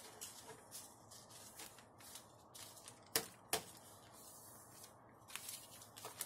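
Sheets of paper and aluminum foil rustling and crinkling as they are handled and shuffled together, with two sharper crackles about three seconds in.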